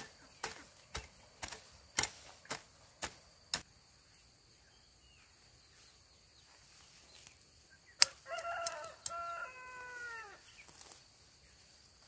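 Rapid chopping strikes, about two a second, stop after three and a half seconds. After a pause comes a single sharp knock, then a rooster crowing once: one drawn-out call about two seconds long that falls in pitch at its end.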